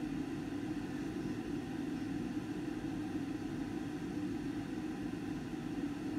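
Steady low hum with no rhythm or breaks.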